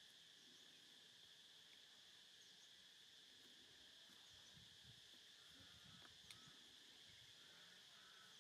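Near silence with a faint, steady insect chorus in the background, and a single sharp click about six seconds in.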